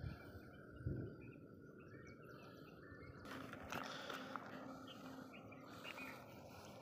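Faint outdoor ambience: a steady thin insect-like drone with scattered bird chirps, and a couple of low thumps in the first second.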